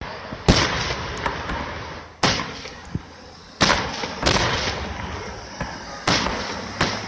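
Aerial fireworks shells bursting, about seven sharp booms at uneven intervals, each trailing off before the next.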